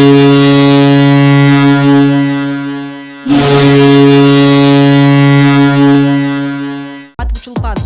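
Boston Bruins arena goal horn blowing two long, deep blasts, the second starting about three seconds in. Electronic dance music kicks in just before the end.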